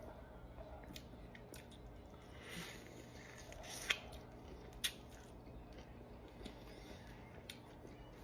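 Faint mouth sounds of eating a Cajun shrimp boil: chewing and wet smacking, with a few sharp clicks, the loudest about four and five seconds in.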